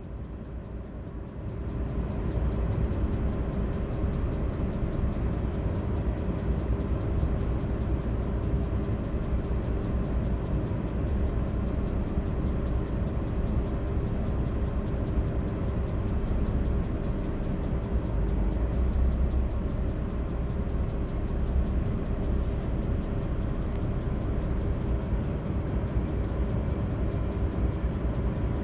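Audi A8 D3's 6.0-litre W12 engine running steadily, on a car being checked for misfires. It grows louder about a second and a half in, then holds an even hum.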